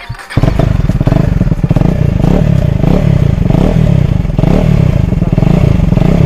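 KTM Duke 250's single-cylinder engine revved hard and repeatedly through an open exhaust with its dB killer removed, a loud, rapid firing rumble rising and falling about every half second. It cuts in suddenly just after the start.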